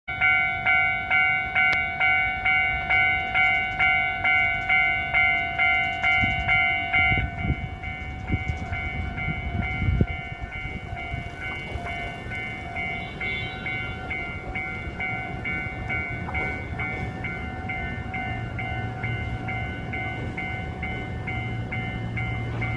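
Japanese railway level-crossing warning bell ringing at about two strokes a second, loud at first and then softer after about seven seconds. A low rumble runs under it from about seven to ten seconds in and ends in a sharp knock, and a steady low hum joins near the end.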